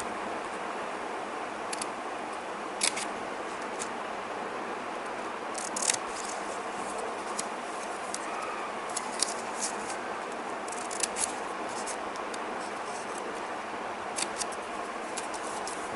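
Scissors snipping through a strip of stacked paper layers: short, sharp cuts at irregular intervals, a second or more apart, over a steady hiss.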